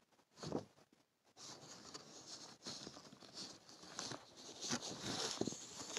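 A soft knock about half a second in, then faint, uneven rustling and crackling with small clicks close to the microphone.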